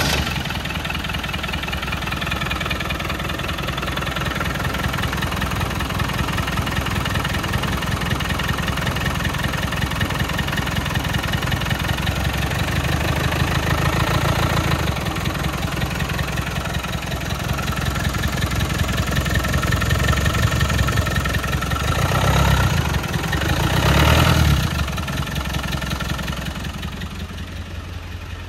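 1998 Land Rover Defender 110's 300Tdi 2.5-litre four-cylinder turbodiesel idling steadily just after a cold start. It briefly grows louder twice, a little over twenty seconds in.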